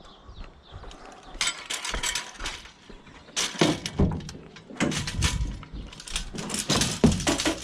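Brake pads and scrap metal clanking and clattering as they are handled and dropped, in quick runs of sharp knocks.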